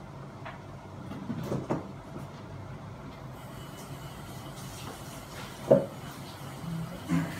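A few knocks and clatters of hard objects being handled, the sharpest knock a little past halfway, over a steady low hum.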